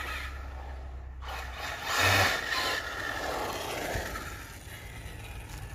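Arrma Senton 6S brushless RC short-course truck driving fast on asphalt: electric motor whine with tyre noise, getting louder about two seconds in.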